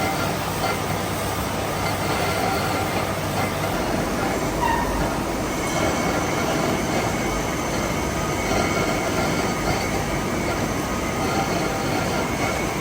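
Metalworking machinery running steadily in a machine shop: a dense metallic noise with a faint, steady high whine.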